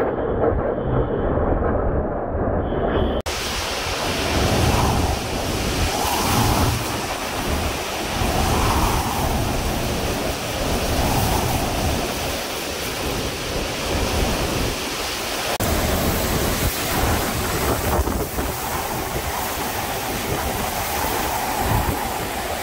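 Category 4 hurricane wind and driving rain, rising and falling in gusts every couple of seconds, with wind buffeting the microphone. About three seconds in, the sound abruptly turns brighter and fuller.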